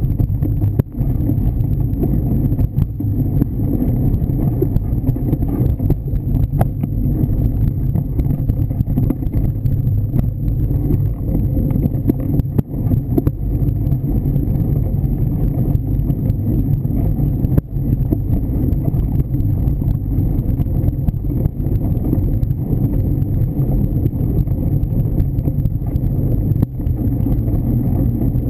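Steady low rumble of a fat-tyre mountain bike rolling over a leaf-covered dirt trail, picked up through the bike-mounted camera, with scattered knocks and rattles from bumps.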